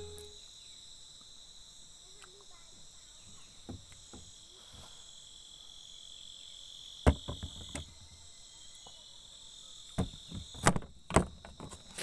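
Insects calling in a steady high drone, with a sharp knock about seven seconds in and a few more knocks and taps near the end.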